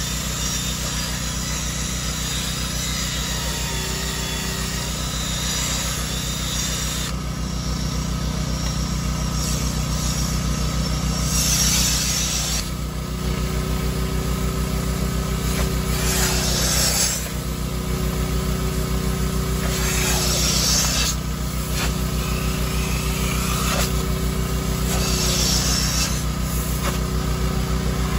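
Brush on a Craftsman cordless drill spinning against a cloth car seat for the first several seconds, over the steady running of a carpet extractor's motor. Then the extractor's upholstery hand tool is drawn across the seat in strokes, with a louder spray-and-suction hiss about every four to five seconds.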